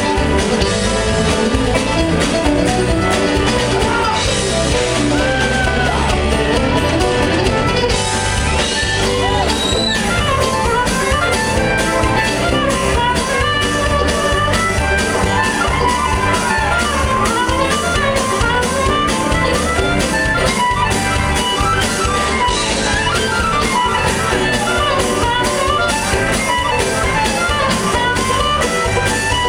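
A live bluegrass-rock band plays an instrumental section with guitars, bass and drums. A harmonica lead of bending, wavering notes runs over the band through much of it.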